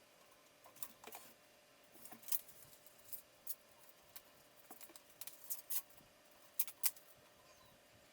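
Irregular small clicks and light taps of computer hardware being handled during assembly into a case, over a faint steady hum.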